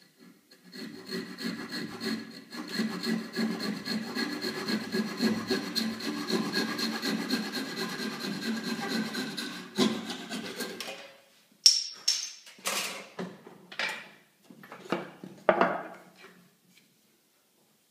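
Handsaw cutting lengthwise through a wooden dowel in quick, even strokes for about ten seconds, then stopping. A few separate short knocks and scrapes follow.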